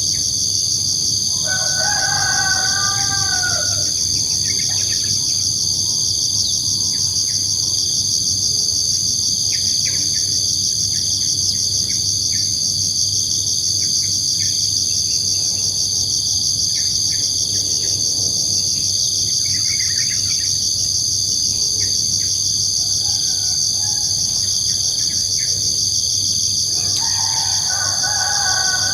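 Steady high, pulsing chorus of crickets, with a rooster crowing twice, once about two seconds in and again near the end, and scattered short bird chirps.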